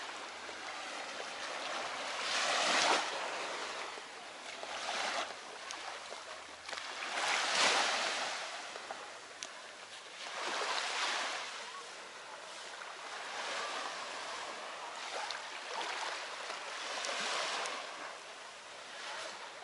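Small waves washing up on a sandy beach, each wash swelling and fading every two to three seconds.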